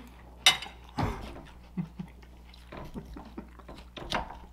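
Close-miked eating sounds: a handful of short, sharp mouth smacks and fork clicks against a plate, with short gaps between them, the loudest about half a second in.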